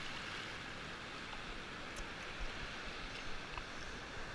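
Shallow surf water washing and rushing over sand around a bodyboard, a steady wash with a couple of faint clicks.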